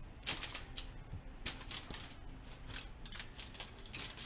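A handful of light, irregularly spaced clicks and scrapes of a metal spoon working a herb puree, with aluminium foil crinkling under the hands.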